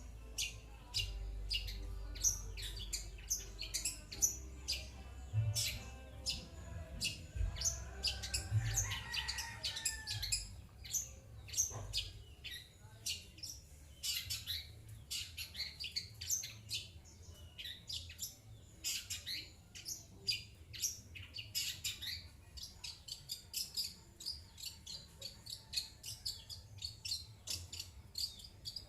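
Long-tailed shrike (cendet) calling in a long fast run of short, high chirps, several a second, with only brief pauses.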